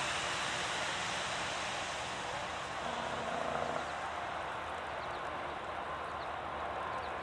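Steady rushing noise of wind blowing across the microphone in a snowstorm, with a faint short tone about three seconds in.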